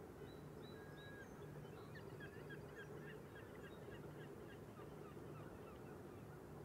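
Birds chirping faintly: many quick short chirps and a few thin whistles, over a low steady hum.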